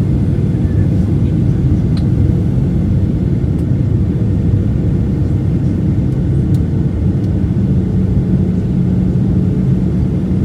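Steady low roar of a jet airliner's engines and rushing air, heard inside the passenger cabin on the landing approach. A faint steady hum runs through it, and a slightly lower hum joins about three-quarters of the way in.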